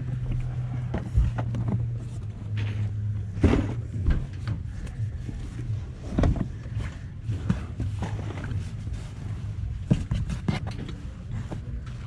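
T-shirts being handled and flipped through in a cardboard box: cloth rustling and scattered knocks against the cardboard, the loudest about three and a half seconds in, over a steady low rumble.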